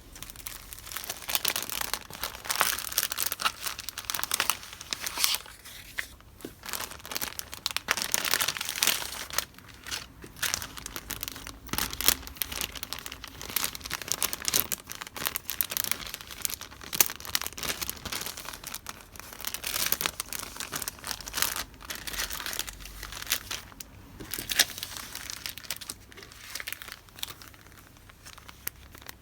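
Paper stationery goods and their wrapping being handled: continuous crinkling and rustling, with a couple of short pauses.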